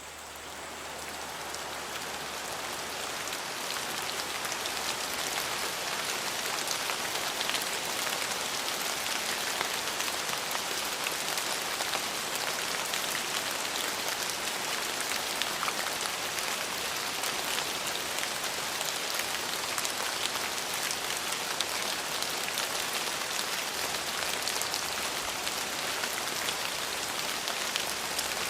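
Heavy rain falling steadily, a dense hiss of many fine drop patters that fades in over the first few seconds and then holds even.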